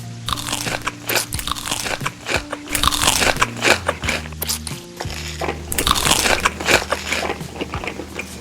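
Crunchy food being bitten and chewed close to the microphone in a dense run of loud crunches, with background music underneath.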